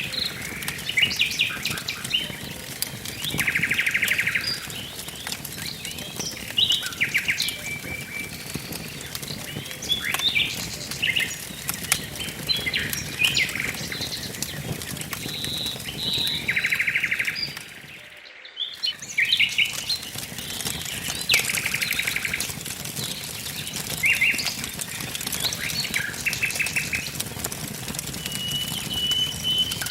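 Wood fire crackling with sharp, scattered pops under songbirds singing: short chirped phrases and about a second long rapid trills that recur several times. The whole sound drops out briefly a little past halfway.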